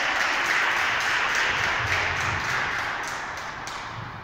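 Spectators clapping and cheering in a reverberant gym hall, dying down over a few seconds.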